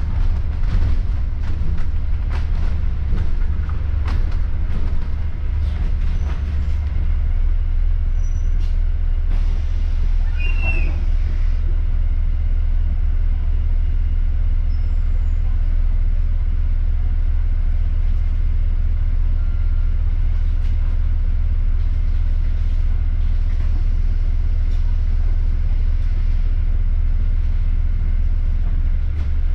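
Service bus running: a steady low rumble, with rattles over the first several seconds and a short high squeal about ten seconds in.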